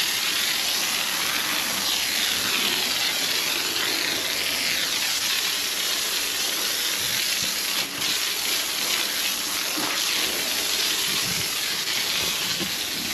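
Garden hose spraying water onto concrete steps, a steady hiss, washing drywall powder off them; the spray briefly drops out about eight seconds in.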